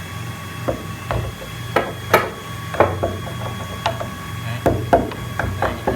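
Irregular sharp wooden knocks and clacks from a CNC-carved jackfruit-wood panel being handled, over a steady low hum.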